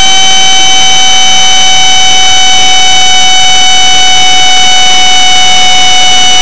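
70mm electric ducted fan on an RC jet whining at a steady high pitch in flight, with rushing air, heard up close on the airframe. The pitch holds level, easing slightly only at the very end.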